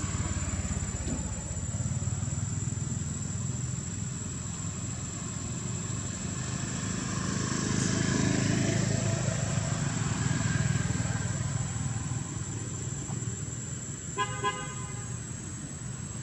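A motor vehicle engine running, growing louder toward the middle as it passes and then fading, followed by two short horn beeps near the end.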